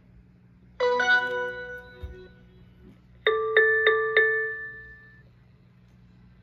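Sovmiku CQ1 solar security camera's power-on chime from its built-in speaker, confirming it has switched on. A two-note chime about a second in, then a quick run of four ringing notes a couple of seconds later, each fading out.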